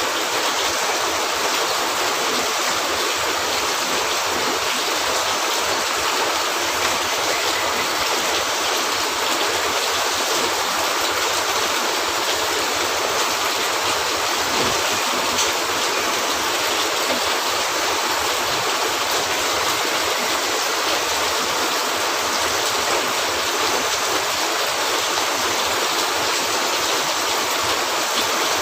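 Steady heavy rain, an even, unbroken hiss with no letup.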